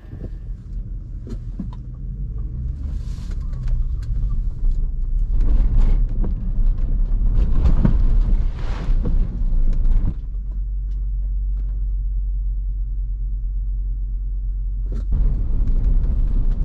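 Land Rover LR3 driving on a dirt forest road: a steady low rumble of engine and tyres. It gets louder and rougher between about five and ten seconds in, settles, then picks up again near the end.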